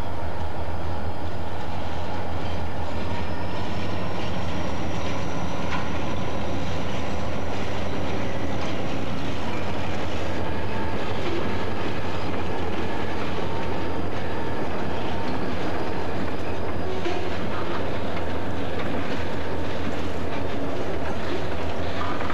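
Freight train of an EMD GP40 diesel locomotive, with its turbocharged 16-cylinder engine, and boxcars passing close by. The engine rumbles steadily under a thin high whine that fades after the middle, and the wheels clack over rail joints as the boxcars roll past near the end.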